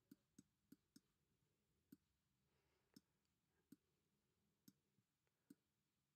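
Near silence with about nine faint, sharp clicks, several in quick succession in the first second and then about one a second: a stylus tapping a pen tablet as digits are handwritten.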